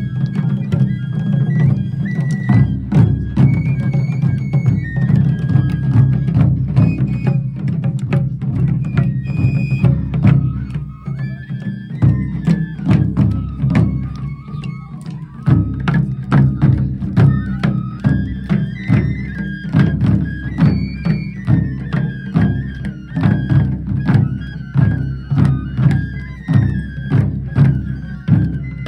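Japanese taiko drums played in a driving, even rhythm of many strokes, with a high melody line stepping between notes above them. The drumming drops back for a few seconds around the middle, then comes back at full force.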